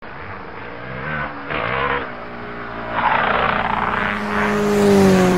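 Motorcycle engine revving in several swells while riding, with a steady held musical tone coming in about four seconds in.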